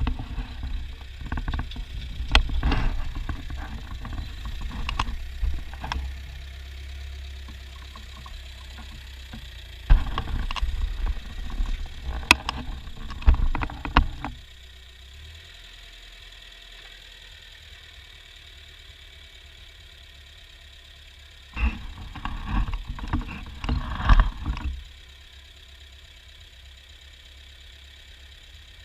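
Ford farm tractor engine running steadily, broken by three bouts of loud clattering knocks.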